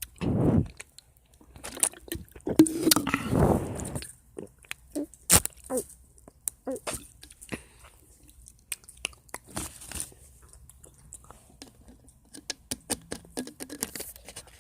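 Crunchy food being chewed close to the microphone: scattered crisp crunches and mouth clicks. Louder muffled noise comes right at the start and again from about two to four seconds in.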